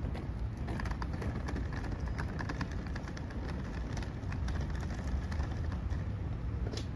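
City street ambience: a steady low rumble of traffic with scattered light ticks and clicks on top.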